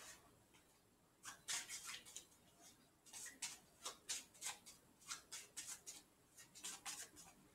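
A deck of playing cards being handled and shuffled between the hands: a run of short, crisp card snaps and flicks starting about a second in.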